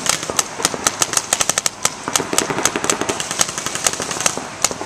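Paintball markers firing rapid, uneven strings of shots, several a second.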